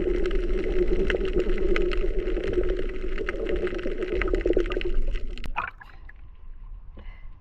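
Underwater sea sound: a steady low drone with many sharp scattered clicks. The drone cuts off about five and a half seconds in, leaving fainter, sparser clicks.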